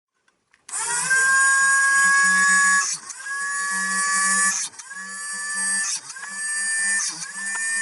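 Electric drill running in repeated trigger pulls while drilling out furnace gas burner orifices to a larger numbered bit size. It starts about a second in, and after each brief let-off the motor whine climbs back up in pitch, about five times.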